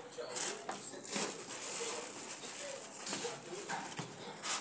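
Plastic bag crinkling and rustling as a wrapped appliance is handled in its cardboard box, with a few sharper rustles.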